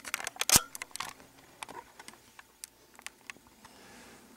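A quick run of sharp clicks and knocks, loudest with a dull thump about half a second in, then scattered faint ticks.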